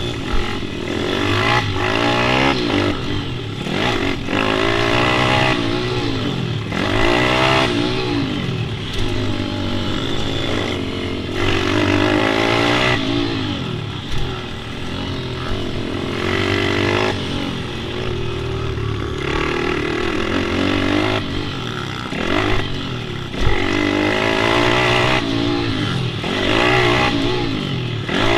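Pit bike engine running hard, its pitch repeatedly climbing with the revs and dropping off again every couple of seconds.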